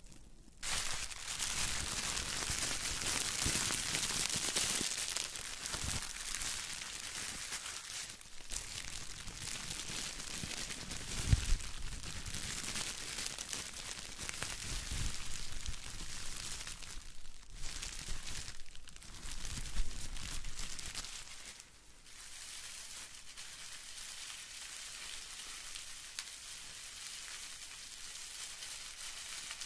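Close-miked rustling and crinkling of plastic handled in the hands: first a tinsel garland, then a wad of bubble wrap squeezed and scrunched. The crinkling is steady, with a couple of low thumps around the middle, and grows softer over the last third.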